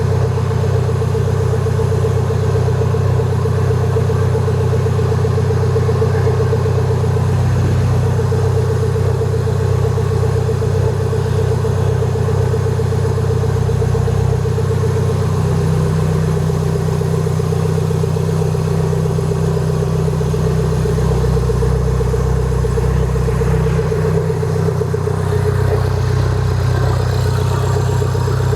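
Mini Cooper S four-cylinder engine idling steadily.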